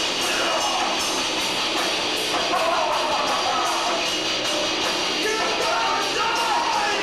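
Live noisecore band playing loud, dense distorted noise, with a fast, steady beat of cymbal-like strokes and wavering high squeals sliding up and down over it.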